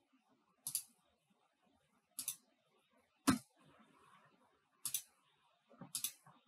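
Faint, sharp computer mouse clicks, five of them a second or so apart, several as quick double clicks.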